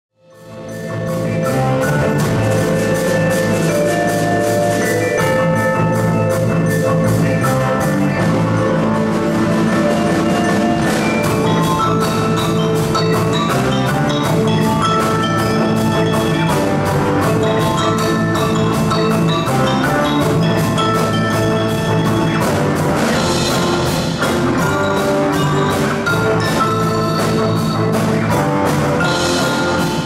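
Live percussion ensemble playing a fast, busy piece: marimbas and other mallet instruments over drum kit and electric bass, fading in over the first second.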